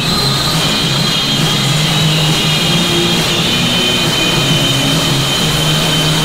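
Loud rock music with drums and long held tones.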